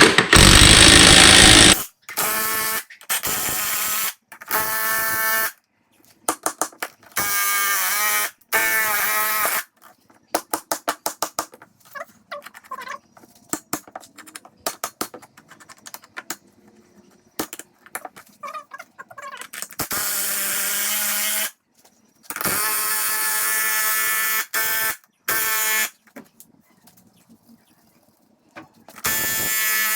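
Power tool driving the bolt of a homemade tractor-tyre bead breaker, whining in repeated bursts of one to two seconds with short pauses between. A harsh, very loud burst comes first, and quick runs of clicking fall between the later runs.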